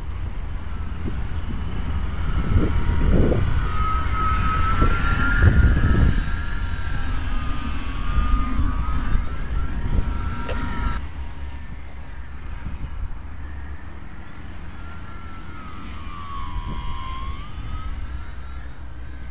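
Motor and propeller of a depron foam KFm4 'UFO' radio-controlled model plane whining in flight. The pitch bends up and down as it passes, once in the first half and again near the end. Wind buffets the microphone with low rumbling gusts, heaviest in the first half.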